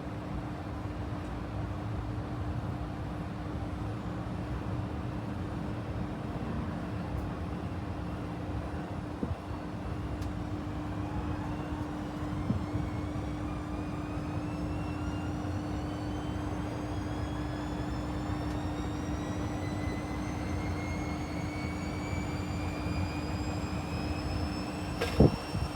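Panasonic XQG32-A312D compact washing machine running with a steady hum and rumble. From about ten seconds in, a motor whine rises slowly and steadily in pitch as the drum speeds up. There is one sharp knock near the end.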